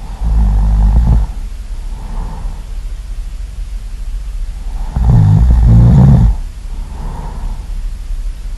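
Loud snoring: a long snore on the in-breath about a second in and again about five seconds in, each followed by a softer breath out.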